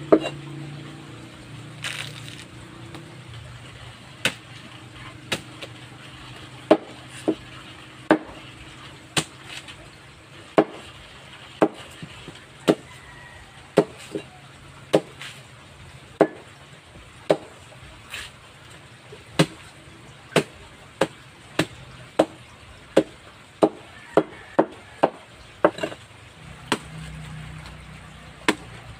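Machete chopping a banana trunk into pieces on a concrete slab: sharp chops about one a second, quickening to a rapid run of chops about three-quarters of the way through.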